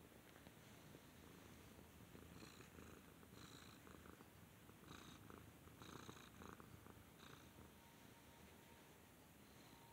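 A domestic cat purring faintly and steadily, close to the microphone. A few brief rustles come through in the middle.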